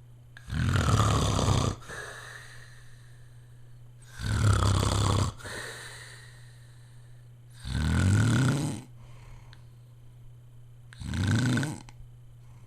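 A man snoring: four loud snores, each about a second long, coming about every three and a half seconds, with quieter breathing between them. A steady low hum runs underneath.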